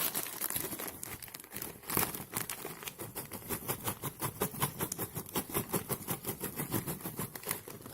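Plastic chiki snack packet being opened and handled, crinkling in a rapid run of sharp crackles.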